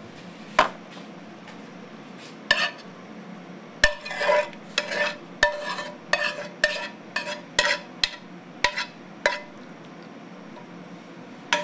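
Metal spoon knocking and scraping against a frying pan as pasta is tipped out onto a ceramic platter: about a dozen irregular sharp clinks with a short ring, most of them in the middle, with a stretch of scraping.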